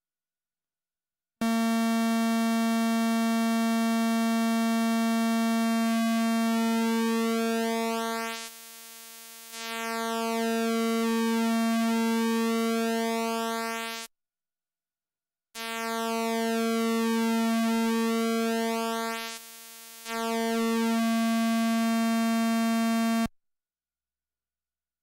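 Eurorack analog oscillator's pulse wave holding one steady note while its pulse width is swept, so the tone's buzzy colour keeps shifting. Twice the sound thins out and drops in level for about a second. It plays in two stretches, each stopping suddenly, with a short silence between.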